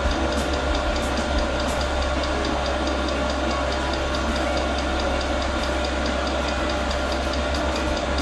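Portable diesel air heater running at maximum power during its first start: a steady low burner rumble and blower whine, with the fuel dosing pump ticking roughly every half second.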